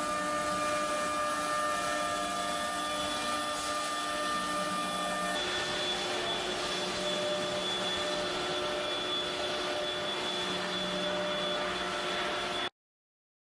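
CNC router's 9 kW spindle running steadily, a machine whine with several steady tones over a noisy hiss; the tones shift to a different set about five seconds in. The sound cuts off abruptly near the end.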